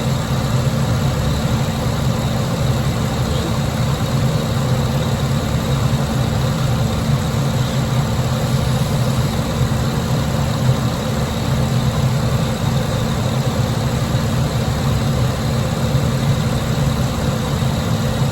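Car engine idling steadily with the air conditioning on full, while refrigerant is being charged into the system.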